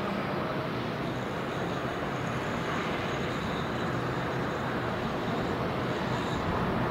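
Steady low drone under an even hiss: the engine and wash of a small coastal tanker under way, leaving port.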